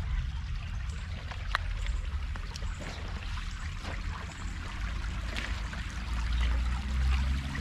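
Shallow creek water trickling and splashing, with scattered small ticks over a steady low rumble.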